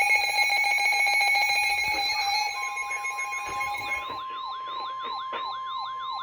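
Emergency alert tones ahead of a tornado warning. A loud, rapidly pulsing alarm of several tones stops about four seconds in. Overlapping it from about halfway, a steady alert tone starts, with a siren-like sweep falling repeatedly about twice a second.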